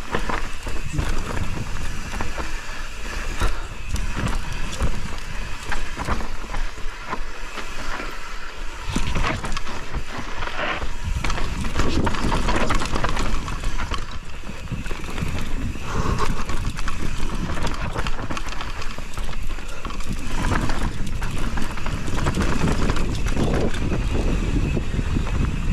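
Mountain bike rolling down a rocky dirt singletrack: steady tyre noise and wind on the microphone, with frequent short clicks and knocks as the bike rattles over rocks.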